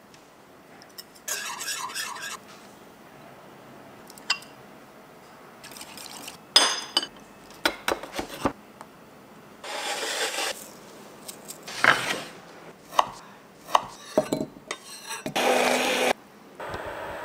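Food-preparation sounds in quick succession: utensils clinking and scraping against glass and metal dishes. An immersion blender runs briefly about a second before the end, then stops abruptly.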